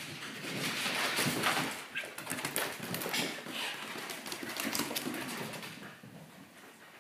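A Corgi and a kitten at rough play: scuffling, with many quick clicks of claws and paws on the floor. It is loudest about a second in and eases off near the end.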